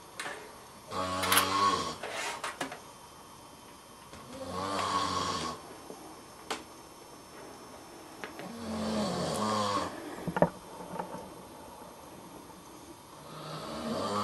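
Someone asleep snoring: four low, buzzy snores about four seconds apart, each lasting about a second. There are a few short clicks between them, with a sharp one just after the third snore.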